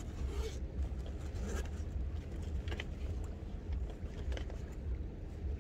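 A zip is pulled open on the top compartment of a fishing rucksack, with short scratchy rustles of the bag's fabric and lid being handled, over a steady low rumble from the boat.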